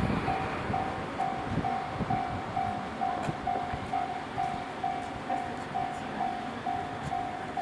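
Japanese railway level-crossing warning bell ringing, a single electronic tone pulsing about twice a second. A passing train's rumble and wheel clatter sounds under it and eases in the first couple of seconds.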